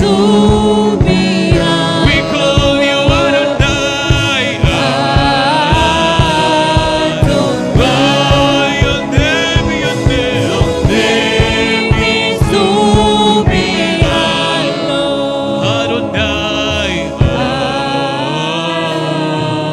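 Gospel worship song: singing voices over a steady drum beat.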